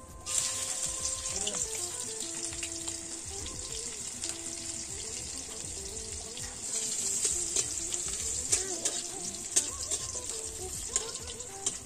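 Hot oil frying in an aluminium wok over a wood-fired clay stove: a steady sizzle that starts suddenly just after the start, with many small crackling pops throughout.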